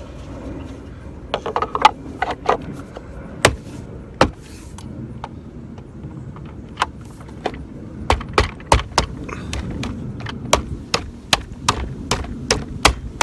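Irregular sharp clicks and knocks of the Minn Kota MKA-21 quick-release bracket's parts being handled and worked together, the puck and locking pin not seating well. A quick cluster comes about a second in, then a few single knocks, then a long uneven run of clicks from about eight seconds in.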